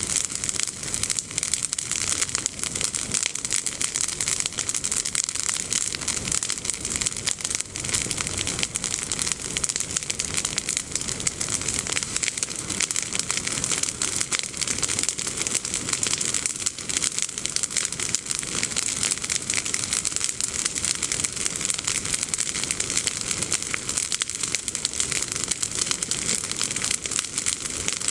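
Bonfire of freshly cut, leafy olive branches burning with dense, continuous crackling as the green leaves catch fire.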